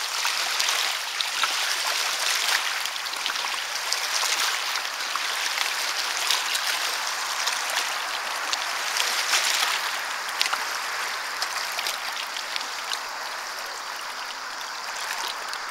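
Shallow seawater washing and trickling over pebbles at the water's edge, a steady hiss full of small splashes and clicks, easing a little near the end.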